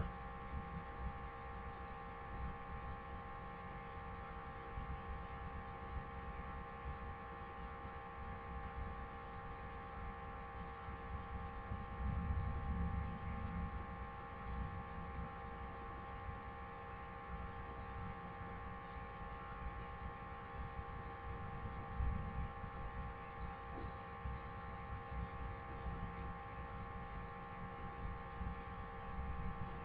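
A steady hum made of several unchanging tones, over an uneven low rumble that swells about twelve seconds in and again briefly about twenty-two seconds in.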